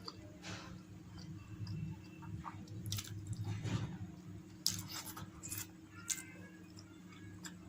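A person chewing food close to the microphone, with scattered mouth clicks, busiest in the middle of the stretch, over a steady low hum.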